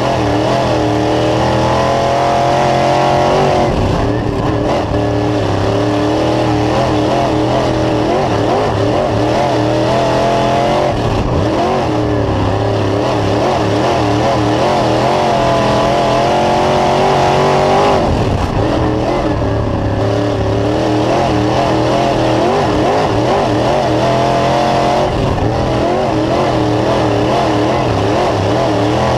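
Dirt late model racecar's GM 602 crate small-block V8 at racing speed, heard from inside the cockpit: the revs climb down each straight and drop off going into each turn, about every seven seconds.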